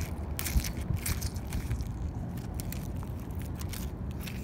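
Scattered clicks and crackles of a bottle cap crusted with small mussel shells being handled against a fishing magnet, fingers rubbing the shells, over a steady low rumble.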